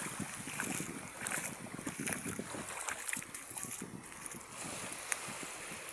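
Wind buffeting the microphone over small waves washing onto a sandy shore, with scattered short crackles of water.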